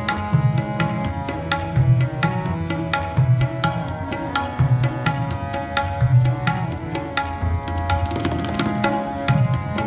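Background music: sustained held notes over a steady drum rhythm of quick light strokes, with a deep drum note about every one and a half seconds.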